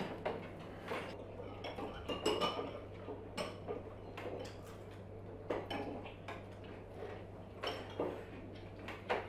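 Cutlery clinking and tapping on china plates and bowls as people eat, in scattered irregular strokes, a few with a short ring. A steady low hum runs underneath.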